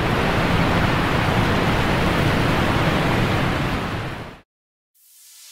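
Breaking surf: a steady rushing wash of sea noise that stops abruptly about four and a half seconds in. Music then fades in near the end.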